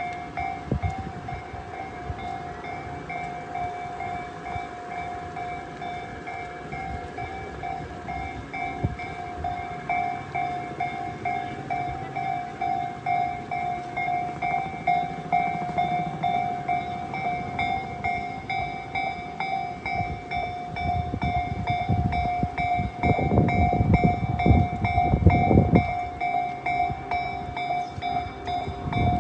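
Japanese railway level-crossing alarm ringing as a steady, repeating electronic ding, sounded because a train is approaching. Past the middle a train crosses, its wheels clattering rhythmically over the rail joints, louder than the alarm.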